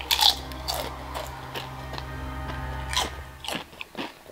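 A crunchy bite into a tortilla chip, followed by scattered chewing crunches. Steady background music plays underneath and stops about three and a half seconds in.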